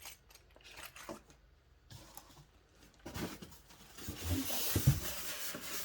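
Hands handling the sewing machine's packed accessories: scattered light clicks and taps, then from about three seconds in a continuous rustling and crinkling of packaging, with a couple of soft knocks.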